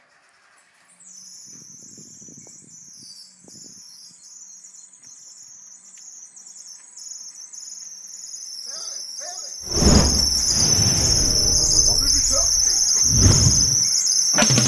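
A high-pitched, wavering electronic whine, then loud rock music with drums and guitar cutting in suddenly about ten seconds in.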